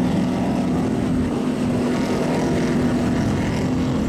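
Big-tyred mud truck's engine running hard at high, steady revs as it churns through deep mud.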